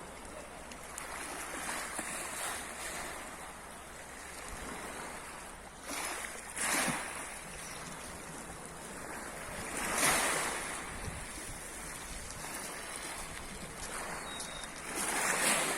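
Sea waves washing onto the shore, a steady surf rush that swells louder every few seconds as waves break.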